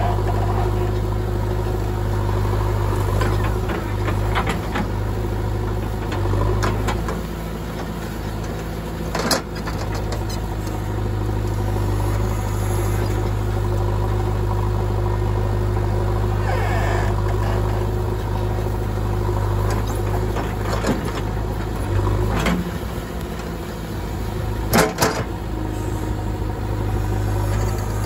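JCB 3DX backhoe loader's diesel engine running steadily while the backhoe arm digs and swings soil. A few sharp knocks from the digging gear stand out, about nine seconds in and twice close together about 25 seconds in.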